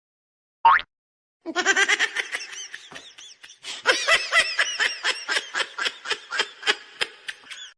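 A person laughing hard in a long run of short, high, rapid bursts, about three or four a second, after a brief pitched sound near the start.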